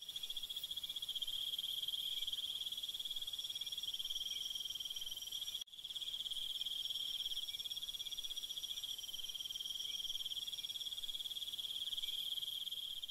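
Night insect chorus: a steady, high-pitched trilling that breaks off for an instant a little before the middle.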